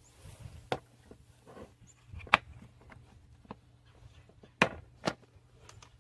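A few sharp clicks and knocks of hard objects being handled, the loudest about two seconds in and two more close together near the end.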